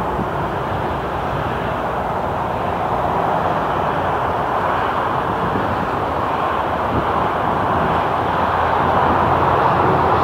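Steady jet engine noise from an aircraft out of sight, growing a little louder near the end.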